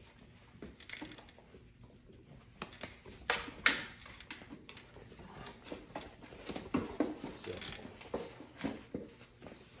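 A young dog shifting and stepping about on a plastic place board, with scattered light knocks, scuffs and rustles. There is one sharper knock a little over three and a half seconds in.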